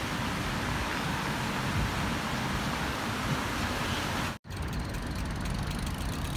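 Road traffic noise: cars passing a roundabout, a steady noisy hum with rumble low down. The sound drops out for an instant about four and a half seconds in, then similar background noise resumes.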